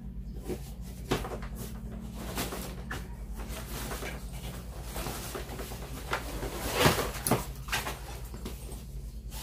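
A suitcase being handled: rustling of its lining and straps with several sharp clicks and knocks, the loudest about seven seconds in. A steady low hum runs underneath.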